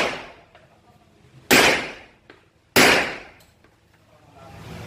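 Rock Island Armory Tac Ultra FS HC, a 1911-style pistol, firing two shots about a second and a quarter apart. Each shot is a sharp crack followed by a short echo off the range walls. The tail of an earlier shot is fading at the start.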